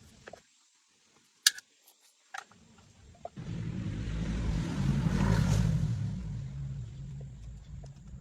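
A sharp click, then a motor vehicle passing by: engine rumble and road hiss swell over a couple of seconds and fade away.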